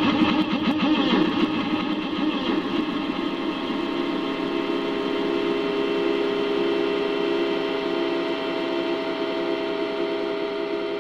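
Yamaha PSR-E233 keyboard sound effect layered over itself a great many times into a dense, loud drone of stacked tones. It warbles for the first couple of seconds, then settles into a steady, sustained chord that slowly fades.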